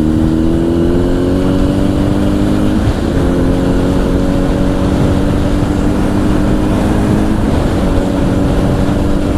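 Honda CBR1000's inline-four engine through a Two Brothers aftermarket exhaust, pulling under way with its pitch climbing slowly, broken by brief dips about three and seven and a half seconds in as it changes gear. Wind noise rumbles on the helmet mic underneath.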